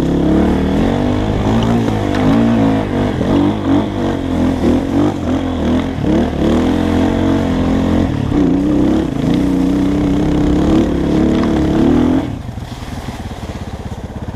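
Dirt bike engine revving hard under load on a steep hill climb, its pitch rising and falling repeatedly as the throttle is worked. About 12 seconds in it drops suddenly to a much lower, steadier running sound.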